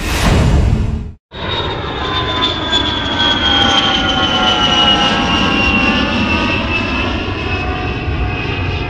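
Airplane engine noise: a short rush, a brief cut, then a steady roar with a whine that slowly falls in pitch, as an aircraft passes.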